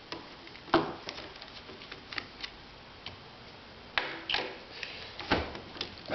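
Scattered clicks and light knocks of a large Phillips screwdriver working Pozidriv screws out of a ski binding, with two sharper knocks about a second in and near the end.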